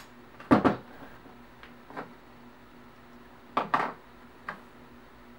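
A few sharp metal clanks and knocks as a steel strut channel and tools are set down and moved about on a table. The loudest double clank comes about half a second in, with lighter knocks later, including a pair a little past halfway.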